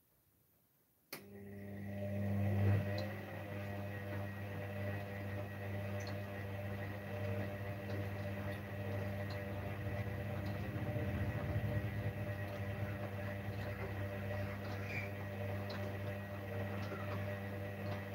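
Gorenje front-loading washing machine starting up with a click about a second in, its motor and heavily loaded drum spinning up over the next second or two and then running steadily with a hum and a faint high whine.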